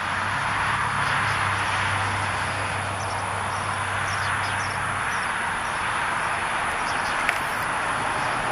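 Steady background noise with a low hum that stops about five seconds in, and a single short click near the end.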